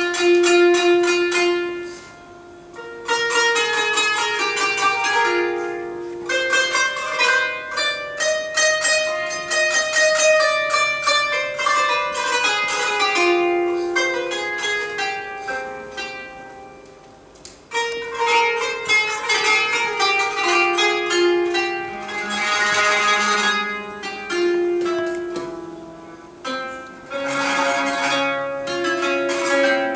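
Solo kanonaki (qanun) playing a free-flowing melody in phrases of plucked, ringing notes, with brief pauses between phrases and quick runs of rapidly repeated plucks near the end.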